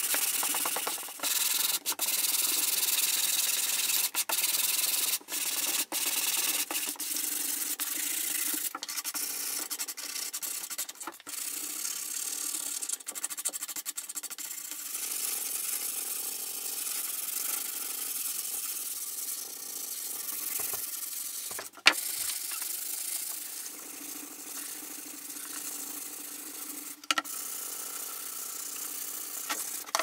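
Sandpaper rubbed by hand over weathered old wood in quick back-and-forth strokes, a steady scratchy hiss that is louder in the first half and softer later. Two sharp knocks, one about two-thirds of the way through and another near the end.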